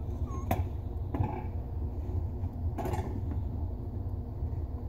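A few light clicks and small scrapes as the pop-up rod pivot nut on a bathroom sink drain is threaded back on by hand, over a steady low hum.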